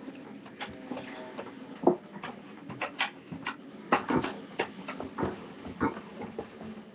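A girl's short, irregular coughs, gasps and gagging noises after taking dry cinnamon in the cinnamon challenge: the powder catching in her throat.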